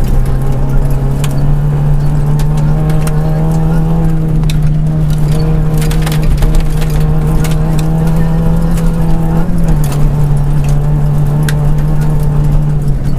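Rally car engine heard inside the cabin, held at a steady pitch along a gravel stage, dropping slightly about ten seconds in. Loose gravel and stones tick and clatter against the car's underside.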